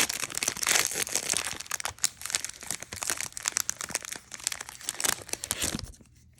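A trading-card pack's foil wrapper being torn open and crinkled by hand, a dense run of crackling that stops abruptly near the end.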